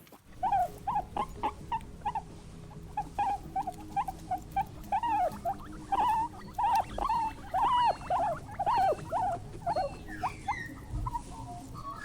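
A small animal squeaking over and over in short, arching calls, two or three a second.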